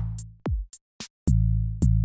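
Electronic music with a drum machine beat: deep kick drums that drop in pitch, sharp clicks, and a low held bass under them.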